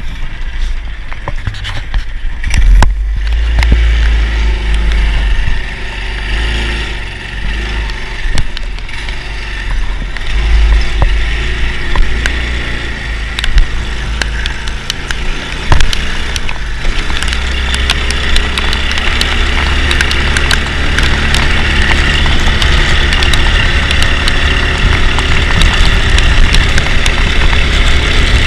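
Go-kart with a swapped-in Honda GX200 single-cylinder engine driving, with heavy wind buffeting on the microphone and frequent clicks and knocks. The engine and road noise grow louder about two-thirds of the way in.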